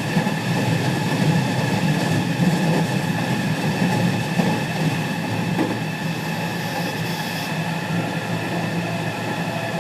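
Running noise heard inside a JR West 207 series 1000 subseries electric train car, KuMoHa 207-1037, with a Toshiba GTO inverter: a loud low rumble of wheels on rail with several steady whining tones over it, easing a little about halfway through. This car is known for an out-of-step inverter modulation sound that harmonises with the normal one on the other end.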